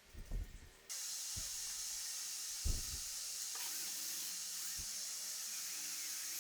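A steady high hiss that starts abruptly about a second in and holds, with a few dull low knocks.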